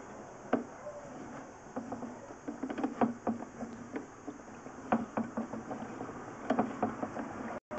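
Irregular light knocks and clicks as a sewer inspection camera's push cable is fed by hand into a 4-inch cast iron drain line, over a faint steady hiss.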